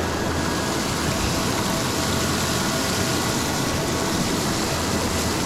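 Steady rush of the Pit River's current.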